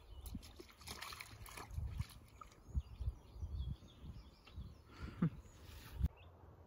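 Faint sloshing and splashing of shallow floodwater as a dog and a person in rubber boots wade in it, over low rumbling wind noise on the microphone; the sound cuts off abruptly near the end.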